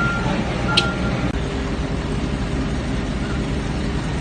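A vehicle's engine running steadily, with a reversing alarm beeping twice in the first second and then falling silent.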